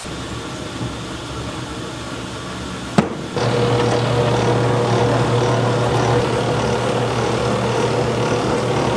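Yong Ma electric noodle machine switched on with a click about three seconds in, then running with a steady hum as it rolls dough sheets and cuts them into noodles.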